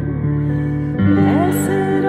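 Hymn music with sustained, held chords. The chord changes and the music gets a little louder about halfway through.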